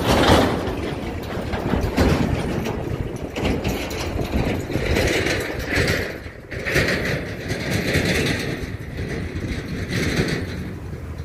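Steady engine noise of farm machinery at work, with a combine harvester cutting wheat, dominated by a continuous low rumble.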